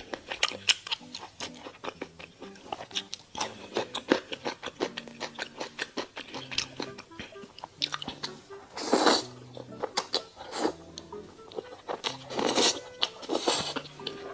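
Close-miked chewing and biting of a crispy-crusted steak, with quick crunching clicks throughout and three longer, louder noisy mouth sounds about nine, twelve and thirteen seconds in. Soft background music plays underneath.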